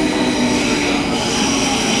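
Berlin S-Bahn electric train running along the track, heard from inside the carriage: a steady rumble of wheels on rails with thin, high whines of wheel squeal on the curving line.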